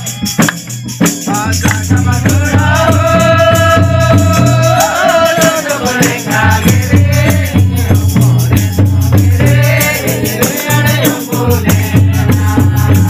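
Mundari devotional bhajan: voices singing in two long phrases over a jingle rattle shaken in a fast, steady rhythm and two-headed barrel drums beating underneath.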